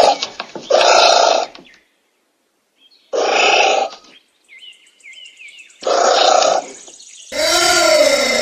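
Anteater calls: five harsh calls with gaps between them. The last and longest rises and falls in pitch. Faint high chirps sound around the middle.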